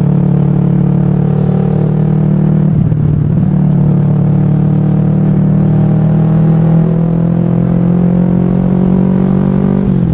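Kawasaki Ninja 250 carburetted parallel-twin engine running steadily at cruising speed, heard from the rider's position, with a brief drop in pitch about three seconds in before it settles back to a steady note.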